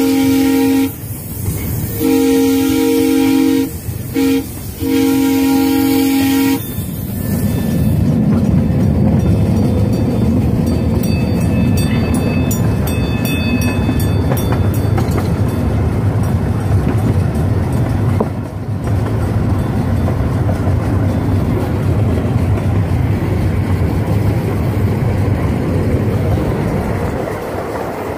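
Miniature railway locomotive's horn sounding the long-long-short-long crossing signal, a two-note chord, the last blast ending about six seconds in. The train then runs on with a steady rumble of wheels on the track.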